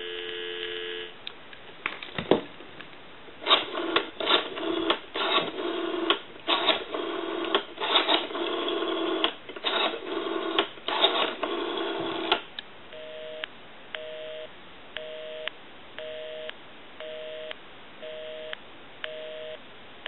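A telephone dial tone stops about a second in. A rotary dial is then worked for several seconds, heard on the line as a run of irregular short bursts and clicks. From about 13 s a busy signal follows: a two-tone beep about once a second, meaning the called number is engaged.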